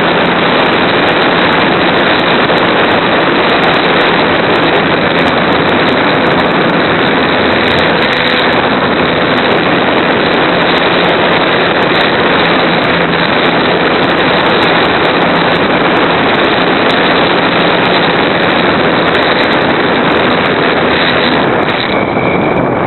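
Model Super Cub plane in flight, heard from its onboard camera: a loud, steady rush of wind and propeller noise with a faint steady motor hum beneath it, changing slightly near the end.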